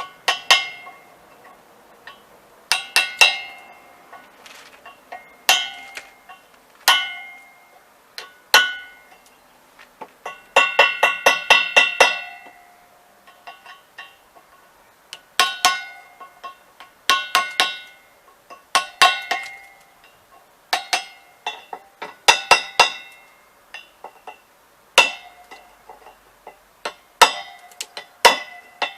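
Old metal wheels being struck again and again: sharp metallic knocks that each ring briefly, at irregular intervals, with a quick flurry of blows about ten to twelve seconds in.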